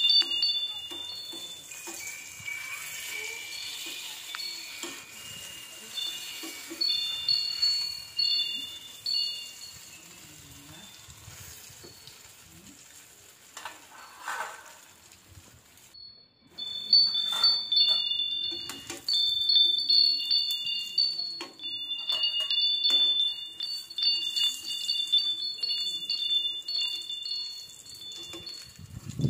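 Chimes ringing over and over in light, high notes at a few fixed pitches. Beneath them, eggplant omelettes sizzle faintly in oil, and a spatula clinks now and then against the stainless pan.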